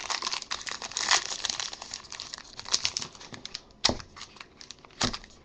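Plastic wrapping of a trading-card pack crinkling and rustling as it is handled and worked open by hand, with two dull thumps near the end.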